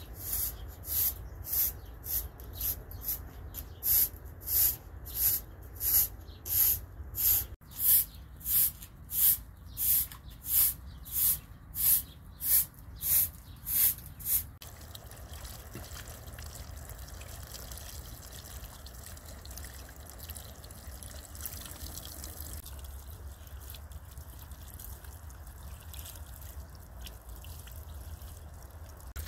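A short hand broom sweeping a concrete floor in regular swishing strokes, about three every two seconds. Halfway through the strokes stop, leaving a steady faint hiss.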